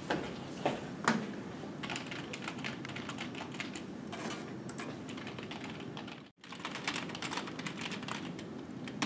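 Fast typing on a computer keyboard, quick irregular key clicks, with a couple of louder knocks in the first second or so. The typing breaks off for an instant just after six seconds, then carries on.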